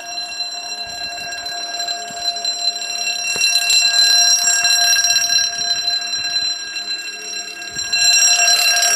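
Level crossing audible warning alarm sounding continuously with a steady electronic tone, warning of an approaching train while the barriers lower. It grows louder about three and a half seconds in and again near the end.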